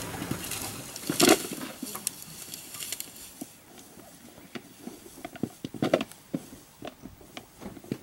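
Two African buffalo bulls fighting head to head in dry grass: irregular knocks and scuffling rustle, loudest about a second in.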